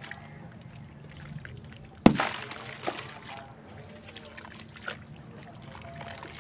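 Wet red dirt and sand-cement lumps crumbled by hand into a basin of muddy water: sloshing and trickling, with one loud splash about two seconds in and a few smaller splashes later.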